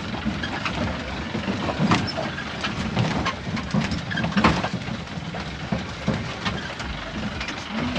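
Off-road safari jeep's engine running, with frequent knocks and rattles as it jolts over a rough unpaved track.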